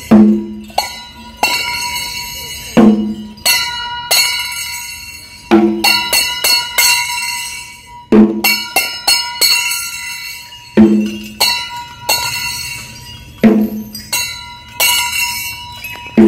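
Metal bells ringing in a slow, regular rhythm: a heavy clang about every two and a half seconds, each ringing on and fading, with lighter clinks in between.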